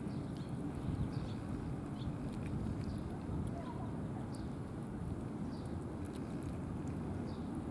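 A cat chewing food, with small wet clicks and smacks repeating over a steady low rumble of background noise.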